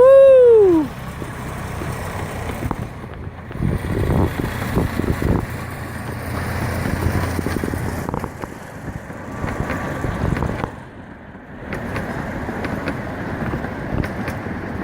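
A loud whoop in the first second, then a miniature railway train running past with a steady rumble and scattered clicks and clatters from the track.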